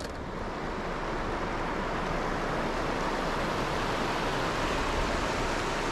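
Steady rushing of a shallow, fast river flowing over a rocky bed and riffles.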